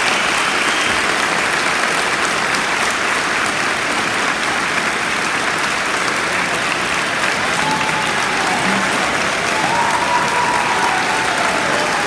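Audience applauding steadily, with a few faint calls over the clapping in the second half.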